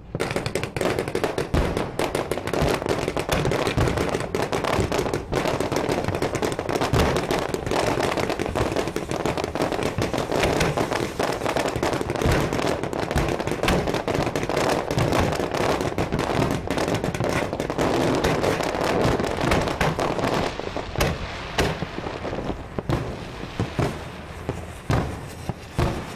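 Fireworks shells launching from the barge and bursting overhead at close range, heard from the wheelhouse of the tug pushing the barge: a dense, continuous barrage of bangs and crackle that thins to more separate bangs over the last few seconds.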